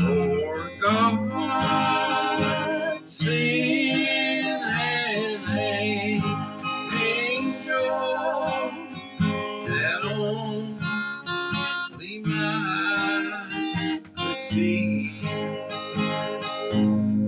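Acoustic guitar strummed and picked as the accompaniment of a gospel song, with a voice singing or holding wavering notes over it.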